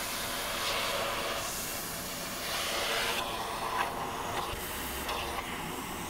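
Handheld vacuum cleaner running, its suction hissing and changing in strength as the nozzle is drawn over a cat's fur.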